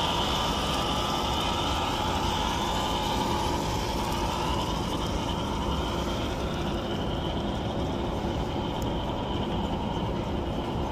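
HO scale model train running on the layout: a steady running noise with a faint whine that eases off partway through.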